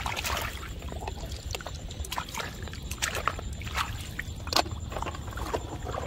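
Shallow muddy water sloshing and splashing in short, irregular bursts as hands dig through the mud and feet wade in the water.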